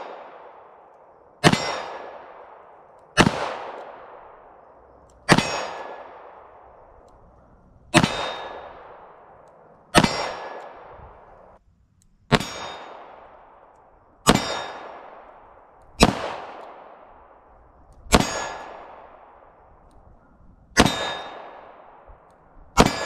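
Kimber K6s Target revolver firing .38 Special 158-grain target loads double action: eleven single shots, roughly two seconds apart, each with a sharp crack followed by a ringing decay.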